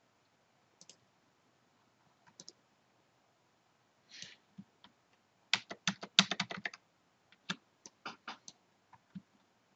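Faint clicks of a computer mouse and keyboard, a few scattered at first, then a quick run of about a dozen about five and a half seconds in, then a few more spaced out.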